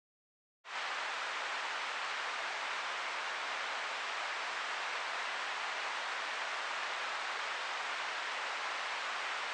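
Steady radio static hiss from a weather radio receiver picking up no programme, cutting in abruptly from dead silence just under a second in. It is the sound of the NOAA weather radio station's broadcast dropping off the air.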